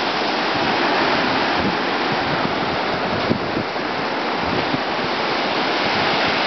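Ocean surf breaking and washing up the beach in a steady rush, with a few brief low bumps of wind on the microphone around the middle.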